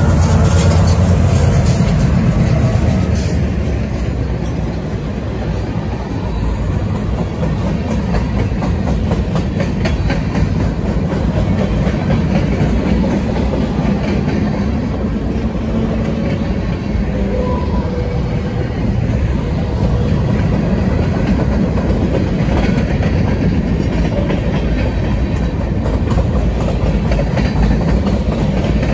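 Diesel freight locomotives rumbling past close by for the first few seconds, then a long string of empty centerbeam flatcars rolling past with a steady wheel rumble and clickety-clack over the rail joints.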